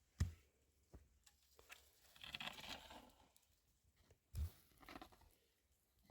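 Two soft thumps, one near the start and one about four seconds later, with a stretch of crackly rustling between them and a few small ticks, as of something being handled close by.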